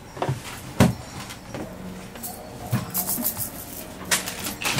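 Scattered knocks and clunks of objects being handled, the loudest about a second in.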